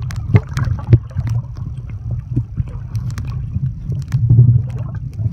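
Muffled underwater sound picked up by a camera held below the surface: a steady low rumble with scattered short clicks and knocks from water movement and the snorkelers around it.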